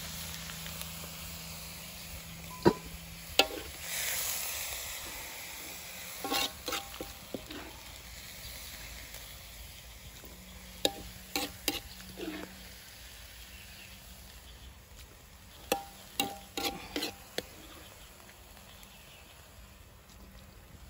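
A metal spoon stirring minced pork, scraping and clinking in scattered clusters against a blackened wok and a stainless-steel bowl. Under it is a faint sizzle of the pork cooking in a little liquid, which fades over the first few seconds.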